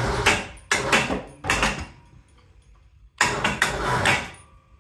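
A hoist lifting a heavy steel-cored transformer off the floor, with four short bursts of mechanical noise. The last and longest comes about three seconds in.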